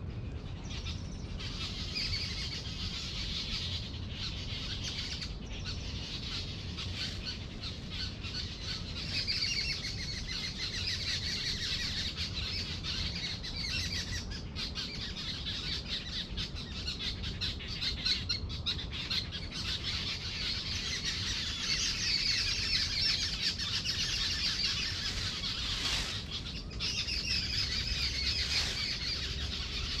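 Many birds chirping and twittering together in a dense, continuous chorus over a low rumble, a little louder in the last third.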